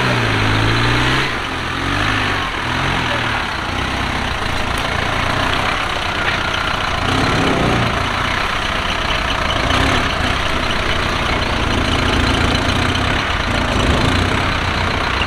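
Off-road 4x4's engine idling steadily.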